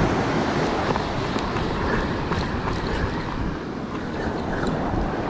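Surf washing up a sandy beach, with wind buffeting the microphone: a steady rushing noise, with a few faint ticks about two to three seconds in.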